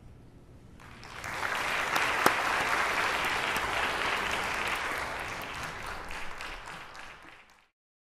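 Audience applauding, starting about a second in, building quickly, then tapering off before it cuts off abruptly near the end, with one sharp clap standing out early on.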